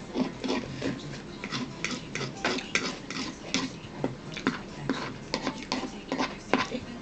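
Eating noises close to the microphone: irregular wet clicks and smacks of chewing and handling food, several a second, over a faint steady low hum.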